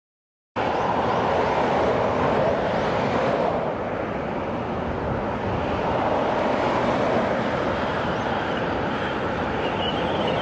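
Steady rushing traffic and tyre noise of vehicles on an expressway, cutting in abruptly about half a second in after a moment of silence.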